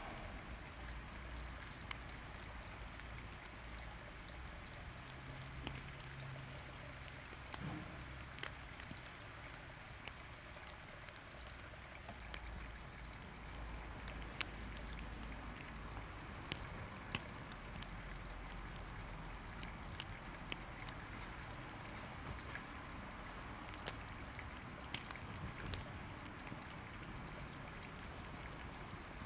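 Steady background hiss with a low hum and scattered faint ticks.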